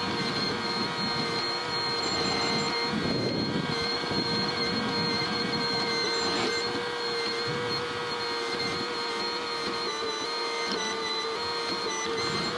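Cat 304E mini excavator running steadily as it works its bucket: a diesel engine with a whine from the hydraulics held at one pitch.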